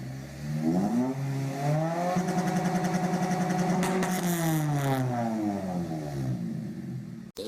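Honda K20 inline-four engine revved hard: the pitch climbs, holds high for about two seconds with a fast pulsing, then falls back. The sound cuts off abruptly near the end.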